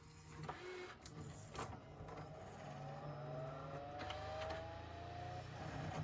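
Small electric motor in a Pioneer CLD-D504 LaserDisc player's mechanism running over a low hum, with a few clicks about a second in and a faint whine that slowly rises in pitch in the second half.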